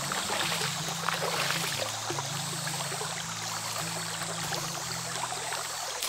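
Flowing river water, a steady rush full of small splashes, with quiet background music of low held notes changing pitch underneath.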